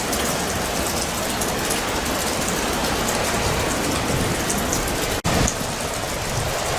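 Steady storm rain falling, an even hiss that cuts out for an instant about five seconds in.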